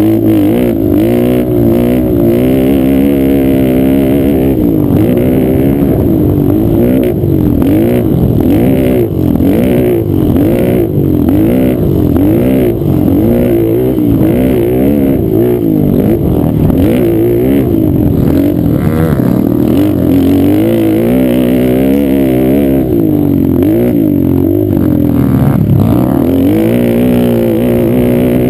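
Sport quad's engine heard close up from the machine itself, running hard and revving up and down over and over as the rider works the throttle and shifts through the race. Frequent knocks and rattles from the rough dirt track come through over it.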